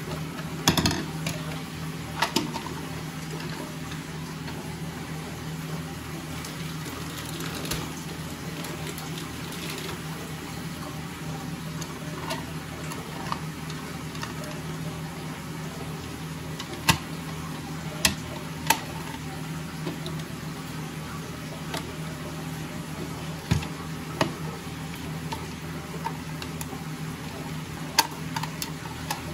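Water running steadily into a toilet cistern, its fill valve left on while the siphon valve is out, with a handful of sharp plastic clicks as the Siamp siphon's washer and clip are worked by hand.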